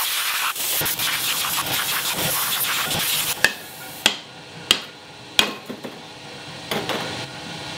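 Arc welding on a steel truck brake rotor, a steady crackling sizzle that stops about three and a half seconds in. Then a chipping hammer strikes the weld in four sharp knocks, followed by a few lighter taps.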